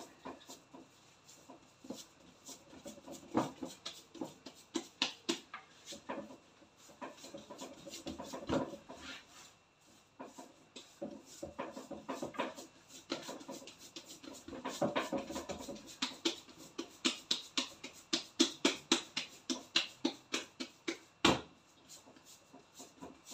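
Irregular light taps and clicks, quickening into a fairly steady run of about three or four a second in the second half, with one sharper knock about two seconds before the end.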